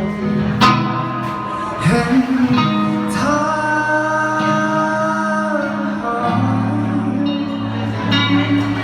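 Pop song: a male voice sings long held notes over guitar, a steady bass line and drum hits.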